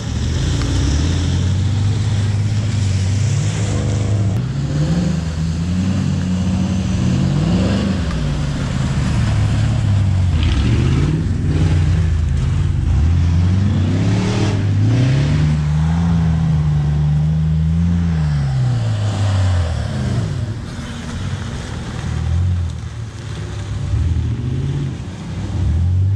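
Motor vehicle engine revving up and down over and over, its pitch climbing, holding, then falling again.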